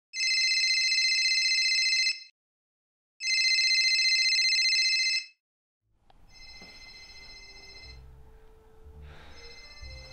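Phone ringtone. It gives two loud rings of about two seconds each with a short gap, then goes on more faintly, twice more, with a low room hum under it.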